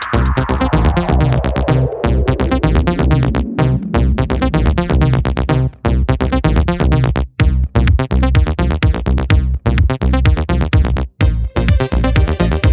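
Electronic dance music from a DJ set, with a steady drum-machine beat and heavy bass. A sweep falls in pitch over the first few seconds, and the beat cuts out briefly a few times.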